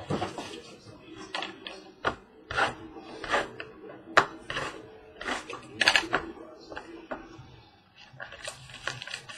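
Cardboard trading-card boxes and packs being handled and opened by hand: an irregular series of sharp taps, scrapes and rustles.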